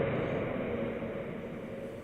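Combine harvester running: a steady mechanical drone with a few held tones, fading away steadily.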